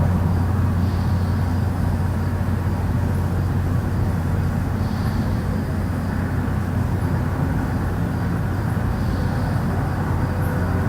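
A steady low rumbling drone, heaviest in the bass, presented as one of the unexplained 'strange sounds' recorded in Stockton.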